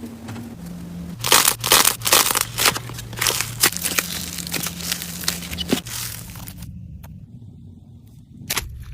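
Slime being worked by hand, giving dense crackling and popping clicks for several seconds that thin out and fade near the end.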